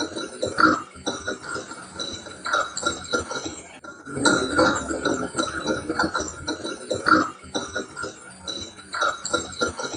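A staccato sound from an overnight bedroom sleep recording, slowed down with its pitch kept and replayed, breaking off and starting over about four seconds in. The recordist takes it for alien or spirit voices (EVP).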